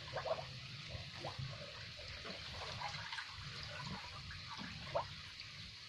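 Cattle drinking a watery feed mash from basins, with irregular small slurps and splashes; one louder slurp about five seconds in.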